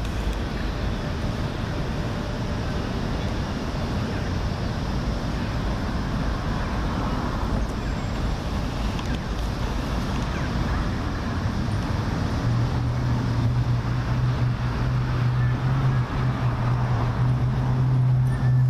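City traffic noise, a steady even rumble. About twelve seconds in a steady low hum joins it and drops a little in pitch near the end.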